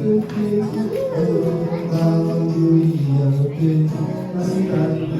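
Acoustic guitar playing a Brazilian caipira-style country song, with voices singing along.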